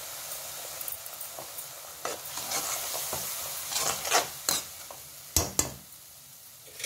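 Shallots, garlic and dried red chillies sizzling in a kadai as a slotted steel spatula stirs and scrapes through them. Two sharp knocks come close together near the end.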